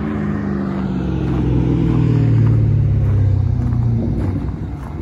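A car driving past on the street: its engine and tyre hum swells, drops in pitch as it goes by, is loudest about halfway through and then fades.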